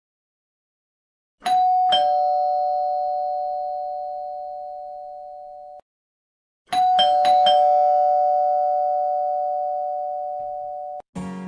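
Two-tone ding-dong chime: a higher note then a lower one, each ringing out and slowly fading before cutting off abruptly. It comes twice: first as a single ding-dong, then about five seconds later as a quicker run of four strikes.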